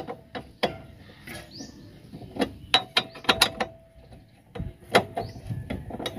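Irregular metallic clicks and clinks of a hand tool working on the steel lower suspension arm and ball joint of a Suzuki F6A multicab, with a run of several quick clicks about two and a half to three and a half seconds in.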